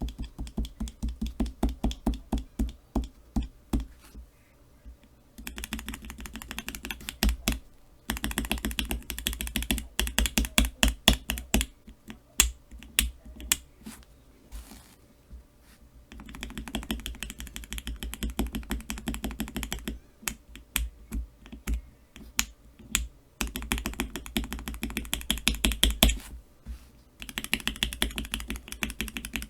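Cherry MX Black linear keyboard switches in a keychain tester, pressed over and over. The clacks come in fast runs of a few seconds each, with brief pauses between the runs.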